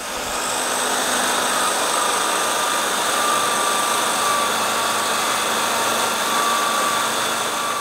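Bench-mounted electric drill running steadily with a buffing wheel in its chuck while a small steel knife-hilt fitting is held against the spinning wheel to polish it. A faint, steady whine rides over the noise.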